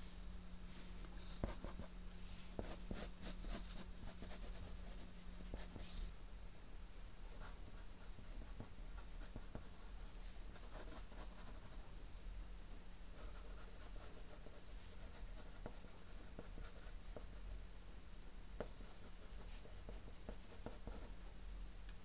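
Graphite pencil scratching across drawing paper in quick strokes, coming in bursts of a few seconds with short pauses between them.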